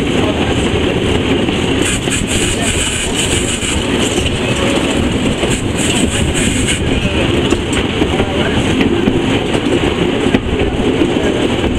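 Steam locomotive running along the line, heard from the footplate: a loud, steady rumble and clatter of the running gear and wheels on the rails, with hissing that comes and goes.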